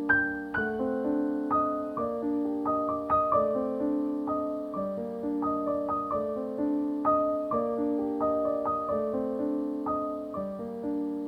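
Background music: a gentle solo piano piece, notes struck one after another and left to ring out at a steady pace.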